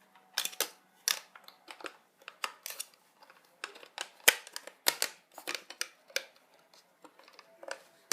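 Plastic external hard drive enclosure being handled and closed up: an irregular string of sharp plastic clicks and rattles, the loudest about four and five seconds in.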